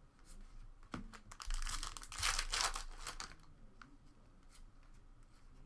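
Trading card pack wrapper being torn open and crinkled: a burst of tearing and crackling from about a second in, loudest around the middle, with a few light clicks before and after.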